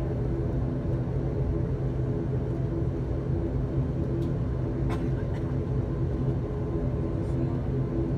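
ATR 72-600's Pratt & Whitney PW127M turboprop engine and propeller droning steadily at taxi power, heard from inside the cabin.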